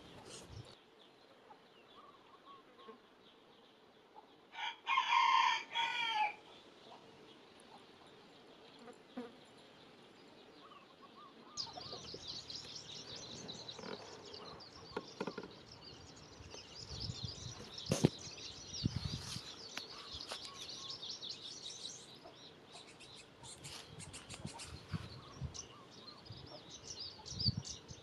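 A rooster crows once, about five seconds in, a loud pitched call lasting just under two seconds. From about twelve seconds on, small birds chirp and twitter continuously, with a few low bumps among them.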